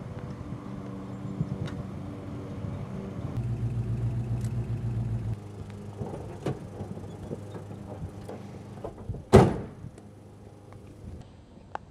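A late-1970s Chevrolet Malibu's engine running as the car pulls up, settling to a steady idle and then switched off about five seconds in. A few light clicks follow, then a car door slams shut once, loudly, a little over nine seconds in.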